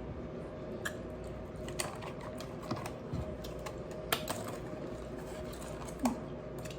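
Scattered light clicks and clinks, about one every second, from eating a bowl of berries and ice cubes in coconut water.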